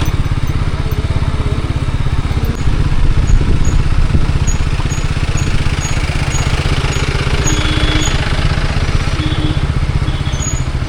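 A motorcycle engine running steadily, a little louder from about two and a half seconds in.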